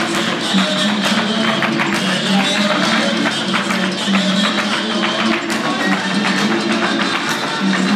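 Recorded Mexican folk-dance music playing over a loudspeaker, with dancers' shoes tapping out footwork on the floor.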